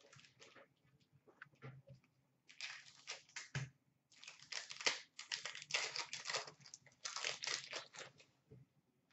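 Plastic foil wrapper of a hockey card pack being torn open and crinkled in the hands, in irregular crackling bursts that start a couple of seconds in and go on for several seconds.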